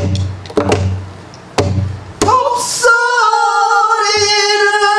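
A buk, the Korean barrel drum that accompanies pansori, struck about four times with a stick in a slow rhythm. Then a woman's voice holds one long sung note of pansori.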